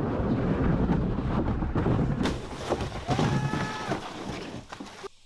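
A homemade kayak carrying a rider sliding and scraping down rocky stone steps into the water: loud, rough rumbling with many knocks, and a shout about three seconds in. It cuts off suddenly near the end.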